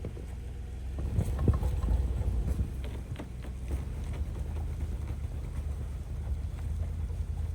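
Toyota 4Runner driving in low range up a snowy road on tire chains: a steady low engine and drivetrain rumble, with irregular clinks and knocks scattered through it.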